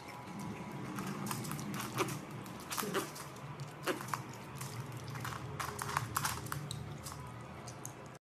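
A hamster's claws scrabbling and clicking on a wooden floor in light, irregular taps, over a steady low hum. The sound cuts off suddenly near the end.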